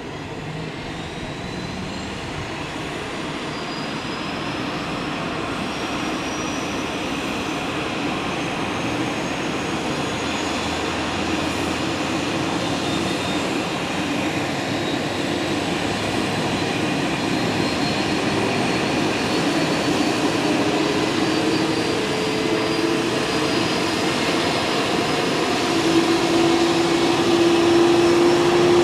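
Leonardo AW169 helicopter's turbine engine spooling up during start: a rising turbine whine over a steady rushing noise that grows louder throughout.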